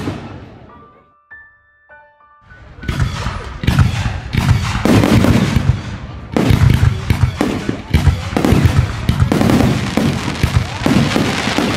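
Aerial firework shells bursting one after another in a dense, continuous barrage of bangs and crackle. It starts about two and a half seconds in, after a brief lull in which the earlier bursts die away.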